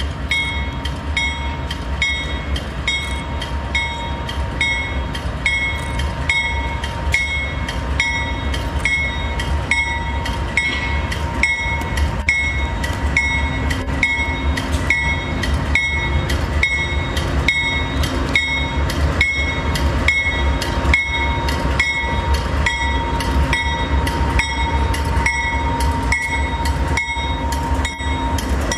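MRS diesel-electric locomotives hauling a cement train, with a deep engine rumble and a steady high whine. Throughout, a bell rings evenly at about one and a half strikes a second.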